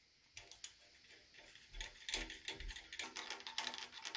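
Faint small metal clicks and ticks from an adjustable checking pushrod and its lock nut being handled and threaded back together by hand, with a few soft low knocks about two seconds in.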